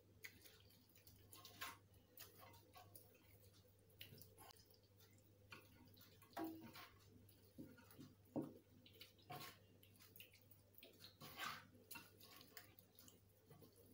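Faint, scattered wet squelches and taps of hands rubbing a spiced marinade into a whole raw chicken in a bowl.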